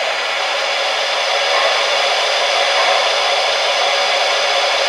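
Steady, even hiss from a Lionel PRR S2 steam turbine O-gauge model locomotive standing still.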